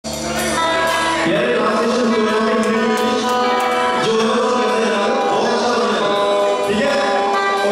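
Live rock band playing loudly, with a drum kit keeping the beat and a singer's voice over the band.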